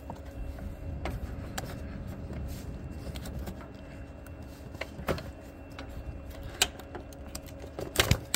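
Scattered clicks and light rattles of plastic and rubber air-intake parts being worked loose by hand in a car's engine bay, over a low steady rumble. A louder clatter comes near the end.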